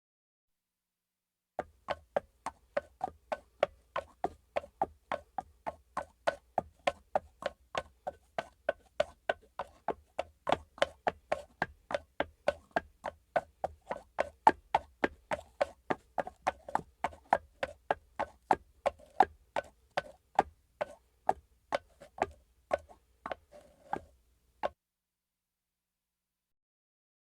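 A steady run of short, sharp ticks or taps, about three a second. It starts about a second and a half in and stops a few seconds before the end.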